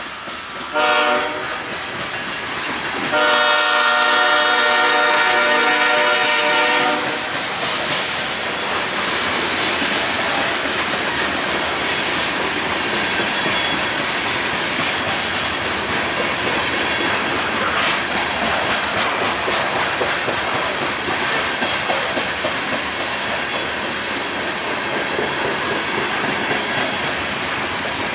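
BNSF diesel locomotive's air horn sounds a short blast about a second in, then a long blast held about four seconds, for the grade crossing ahead. After the horn, the loaded covered hopper cars of the grain train roll past with a steady clatter of wheels on the rails.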